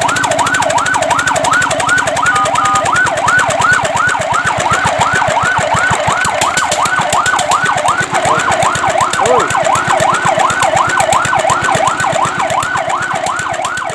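Fire truck siren sounding a fast yelp, its pitch sweeping up and down about three to four times a second.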